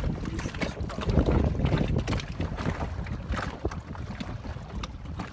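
Wind buffeting the microphone in gusts, a heavy low rumble that peaks about a second in, over the wash of choppy, wind-whipped lake water.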